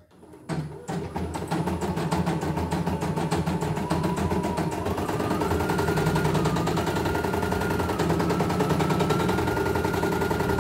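CNY E900 embroidery machine's needle mechanism running at stitching speed: a fast, even clatter with a motor hum whose pitch steps up about five seconds in and again a little later. It is a test run after the bobbin case was caught, and it runs freely, not heavy.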